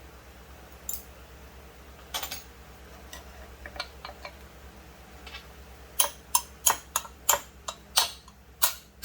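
Hammer tapping on a stuck dowel pin in a chainsaw crankcase. A few scattered light clicks come first, then from about six seconds in a run of sharp taps at about three a second.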